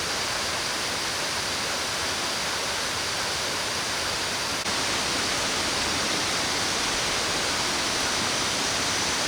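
Steady rushing of water pouring over the main Kuang Si waterfall, its flow still fairly subdued.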